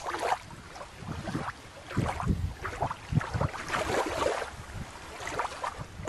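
Outdoor wind buffeting the microphone, with water lapping and a few irregular soft knocks.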